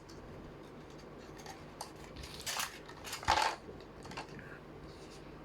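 Batteries being fitted into a plastic battery compartment: faint handling scrapes and small clicks of battery against plastic, the sharpest click a little past the middle.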